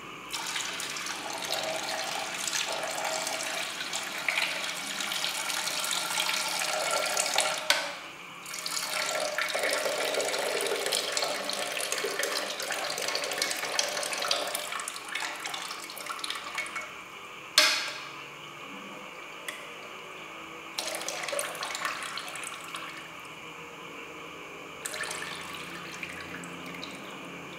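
Noodle cooking water poured from a saucepan into a steel kitchen sink, splashing steadily for about sixteen seconds with a brief break around eight seconds in. A single sharp knock follows, then only short dribbles and splashes.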